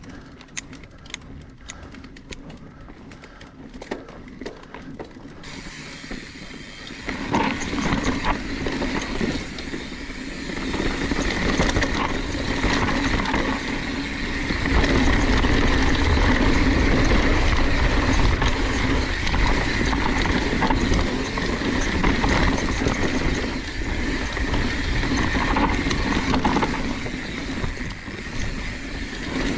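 A mountain bike riding down a dirt singletrack: tyres rolling over dirt and roots, with the frame and parts rattling. It opens quieter with scattered clicks and gets louder about seven seconds in and again about fifteen seconds in, with heavy low rumble from then on.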